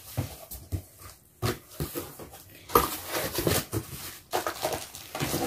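Packaging being handled: irregular rustling, knocks and brief plastic squeaks as boxed items and their plastic wrapping are picked up and moved.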